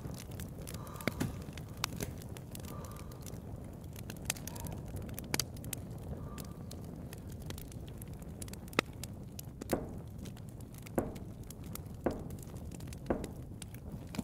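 Fire crackling in a fireplace: a steady low rumble with sharp pops scattered throughout. From about ten seconds in, slow footsteps fall roughly once a second.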